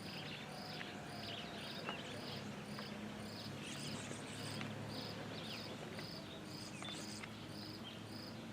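An insect chirping in an even rhythm, about two chirps a second, with a few faint bird chirps and a steady low hum beneath.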